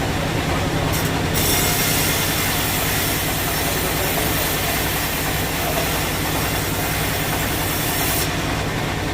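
Sawmill saw running with a steady motor hum; from about a second and a half in until near the end a bright hiss rises over the hum as the blade cuts through a teak log.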